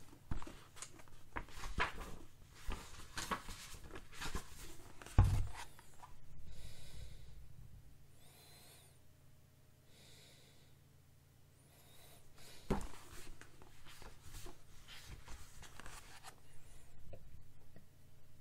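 Paper pages of a hardcover book rustling and flapping as it is handled and leafed through, with a dull thump about five seconds in and another near thirteen seconds. The middle stretch is quieter.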